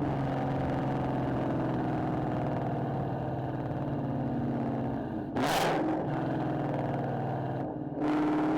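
Ford Mustang engine breathing through aftermarket headers, running steadily under way. About five and a half seconds in there is a brief loud surge, and near the end the note drops out for a moment and comes back at a different pitch.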